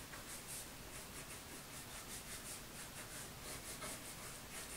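Crayon scribbling on paper held on a clipboard: faint, quick back-and-forth strokes, about three or four a second, as an area is coloured in.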